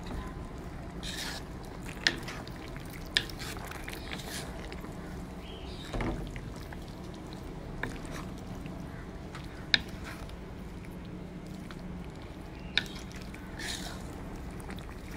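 Spoon stirring kuah lontong, vegetables in coconut-milk gravy, in a pot: soft wet sloshing with four sharp clicks of the spoon against the pot spread through.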